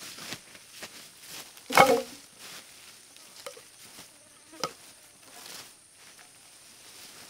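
Footsteps rustling through undergrowth, then an armful of cut wooden poles dropped onto the forest floor with a loud, brief clatter about two seconds in, and a single lighter knock of wood on wood near five seconds as the poles are laid out.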